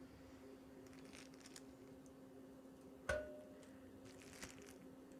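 Faint handling sounds as a bagged steak is lifted out of a pot of boiling water: soft rustles and one sharp metallic clink about three seconds in, over a faint steady hum.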